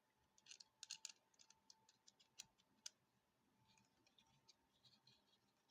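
Faint small clicks and light scratching from the metal parts of a folding knife being worked apart by hand: a quick run of sharp clicks in the first three seconds, then softer ticks.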